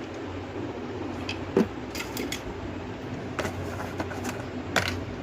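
A few light clicks and knocks, the loudest about a second and a half in, over a steady low hum; no horn is sounded.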